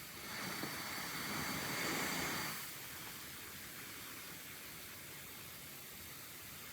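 A man asleep breathing through a CPAP machine: the hiss of the machine's airflow, with one breath swelling and fading over the first two and a half seconds, then a steady faint hiss. It is quiet, normal breathing with no snoring, the sign that the machine is keeping his airway open.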